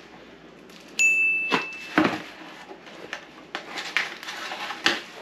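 A single bright bell-like ding, the sound effect of an on-screen subscribe-bell graphic, rings for about a second. It is followed by cardboard rustling and tearing with a few sharp knocks as a long shipping box is cut and pulled open.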